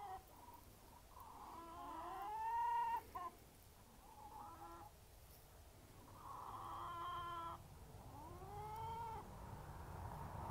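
A series of drawn-out animal calls, each about a second long and rising then falling in pitch, with gaps of a second or so between them.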